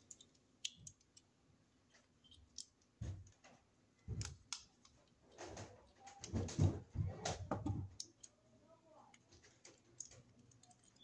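Scattered small clicks, taps and rustles of hands working a wire into the screw terminal of a Wadsworth single-pole circuit breaker, with a louder stretch of handling noise in the middle.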